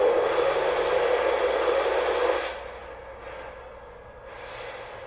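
Lionel Legacy Shay model locomotive's sound system playing a hiss of venting steam. It is loud for about two and a half seconds, then drops to a faint hiss, with a shorter, softer hiss near the end.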